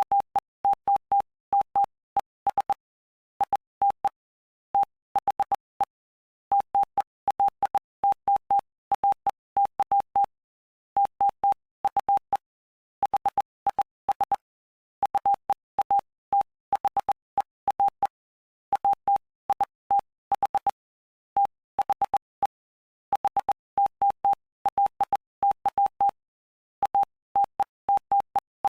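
Morse code sent as a single-pitch beeping tone: short and long beeps (dots and dashes) in groups separated by brief gaps, each beep starting and stopping with a faint click. The code spells out the text of Mark chapter 8 from the New Heart English Bible.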